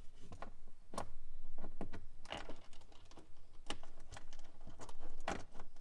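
A handful of light, irregular clicks and taps as a bolt and washer are lined up by hand and pushed into a clip behind a plastic boot trim panel.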